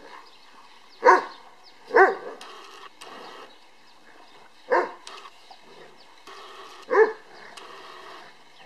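Briards barking while play-fighting: four short, loud barks, two a second apart near the start, then one near the middle and one about seven seconds in.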